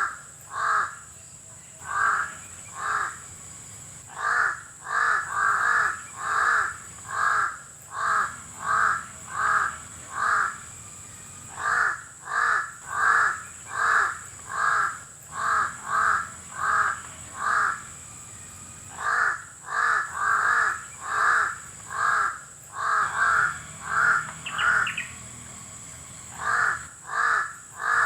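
Crow cawing over and over: harsh caws about two to three a second, in long runs broken by short pauses.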